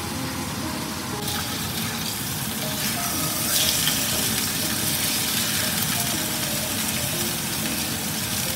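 Beef steaks sizzling as they sear in a hot frying pan, while they are turned over with a spatula. The sizzle grows louder and brighter from about a second in, and is loudest around three and a half seconds.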